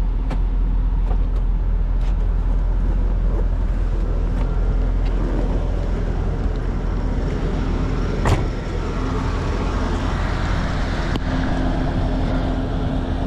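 A Corvette's 5.7-liter LS1 V8 idling steadily, a constant low hum, with one short knock about eight seconds in.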